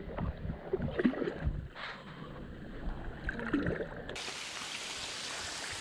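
Steady rushing of water at a waterfall pool, with faint voices in the background. About four seconds in the sound changes abruptly to a brighter, even hiss.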